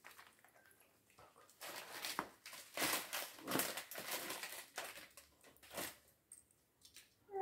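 Plastic crinkling and rustling mixed with small clicks, coming and going for a few seconds from about one and a half seconds in: Lego pieces and their plastic bags being handled.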